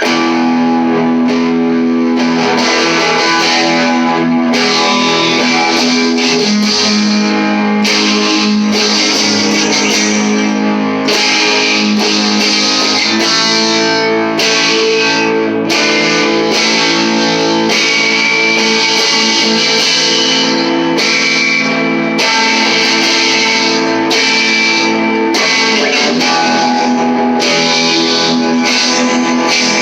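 Electric guitar on its bridge pickup, played through an all-tube amp: continuous strummed chords with a driven, distorted edge.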